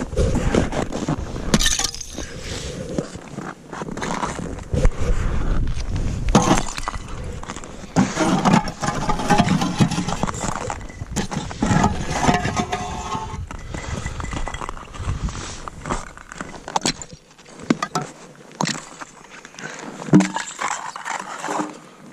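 Plates of frozen river ice being broken by hand: repeated sharp cracks and snaps, with clinking of ice pieces.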